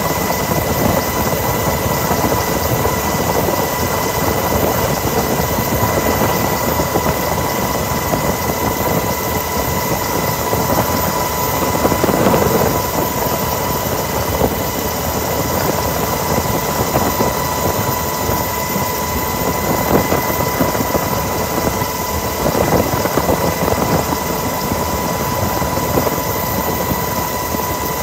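Coast Guard helicopter in flight heard from inside the cabin: a steady, loud rotor and engine noise with a constant high whine running through it.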